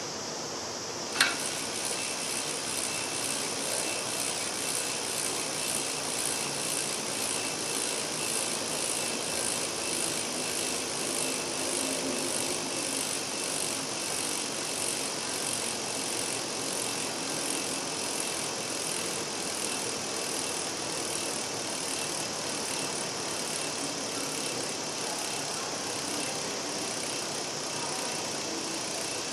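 Freehub ratchet of a 2011 Campagnolo Zonda rear wheel clicking quietly as the wheel freewheels, under loud cicadas buzzing with a steady pulsing rhythm. A single sharp click about a second in.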